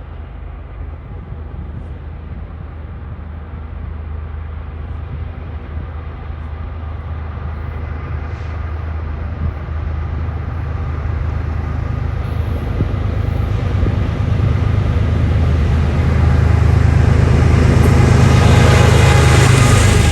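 Diesel train locomotives approaching, their engines running with a steady low drone that grows gradually louder.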